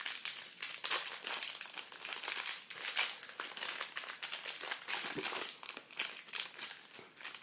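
Crinkly foil or plastic wrapper of a trading card pack being handled and torn open, a steady stream of crackling with no speech.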